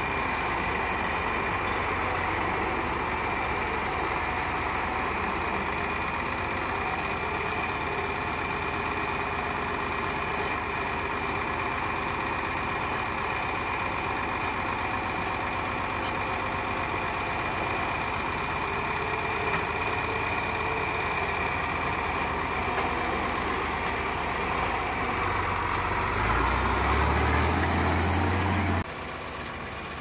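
John Deere 4020 tractor's six-cylinder engine running steadily while working the front loader, with a steady high whine over it. About 26 seconds in the engine note rises and grows louder, then the sound drops off abruptly to a quieter running engine near the end.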